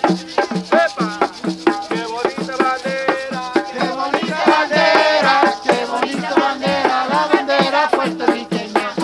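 Puerto Rican plena played live: panderos (hand frame drums) beaten in a steady rhythm of about three strokes a second, with a group of voices singing along.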